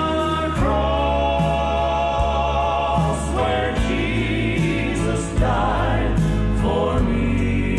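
A Christian song sung by a choir with instrumental accompaniment, the voices holding long notes over a steady bass.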